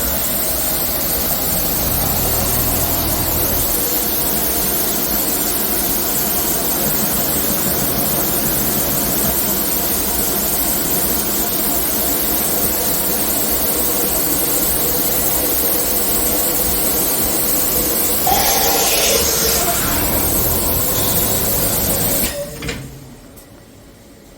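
DMG MORI DMU 70 machining centre running: a steady machine whir with a faint hum. It grows briefly louder and brighter about 18 seconds in, then dies away sharply near the end.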